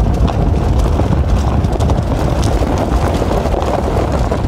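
Car driving off-road over a sandy, gravelly desert track: a steady rumble of engine, tyres and wind buffeting, with many small ticks and clicks throughout.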